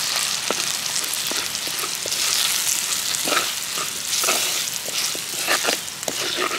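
Shallots, green chillies, curry leaves and spice powder sizzling in hot coconut oil in a pot while being stirred with a ladle. The ladle knocks and scrapes against the pot several times.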